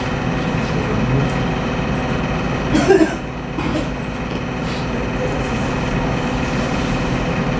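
Steady machine hum and hiss of a room's background noise, with a brief murmur of a voice about three seconds in.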